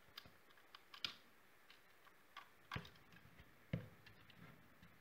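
Faint clicks and taps of small parts being handled: a brass nut turned on a threaded rod and plastic connectors on a cable harness against a plastic bulkhead plate. Three sharper knocks stand out, about a second in, just under three seconds in and nearly four seconds in, the last the loudest.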